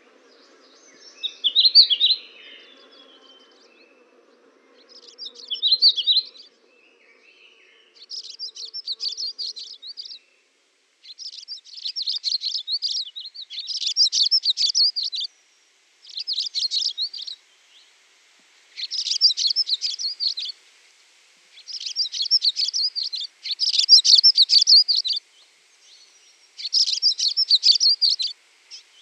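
Small songbirds singing. A few scattered chirps come first, then from about eight seconds in a run of rapid, twittering song phrases, each one to two seconds long, with short gaps between.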